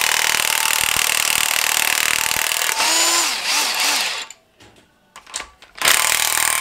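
DeWalt 20V cordless impact wrench hammering a head bolt loose on a Honda K20 cylinder head, then spinning freely with a whine that rises and falls in pitch as the bolt backs out. It stops a little after four seconds in, and hammers again on the next bolt near the end.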